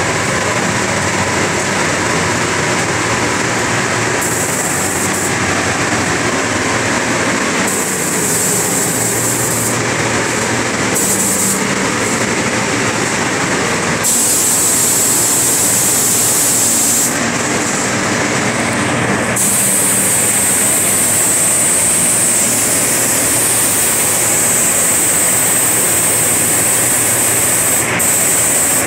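Steady rush of a paint spray booth's ventilation, with the high hiss of a gravity-feed compressed-air spray gun cutting in and out as the trigger is pulled. The hiss comes in short spells early on, then runs longer from about 14 to 17 seconds and again from about 19 seconds almost to the end.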